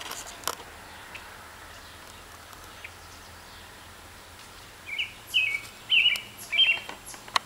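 A bird calling in four short, sharp chirping phrases in quick succession starting about five seconds in, over a steady faint outdoor background. A single sharp click comes near the end.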